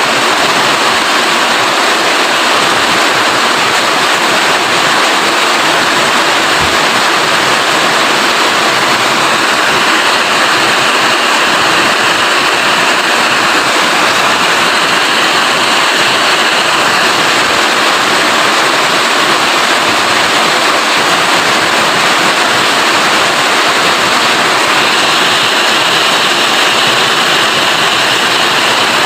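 Steady rain falling, a dense, even hiss that keeps a constant level throughout.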